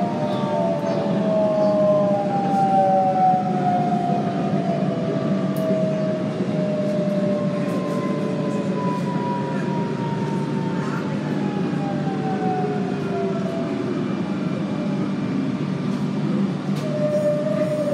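Electric suburban train braking into a station: the traction motors whine in several tones that fall steadily in pitch as it slows, over a steady rumble of wheels on rail. The whine dies away about two-thirds of the way through as the train comes to a stop.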